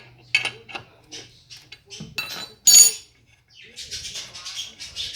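Metal clinks and knocks of a wheel wrench and lug nuts as a car wheel is being taken off, the loudest clank a little under three seconds in, followed by a scraping stretch of about a second and a half.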